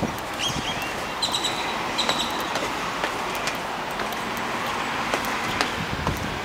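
Footsteps walking down concrete stairs, a steady series of light steps. A few short, high chirps sound between about half a second and two seconds in.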